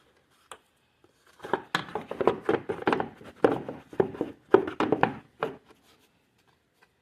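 Plastic fuse box cover being handled and pressed, a run of rubbing, scraping and knocking noises for about four seconds, starting a second and a half in. The cover is not latching shut.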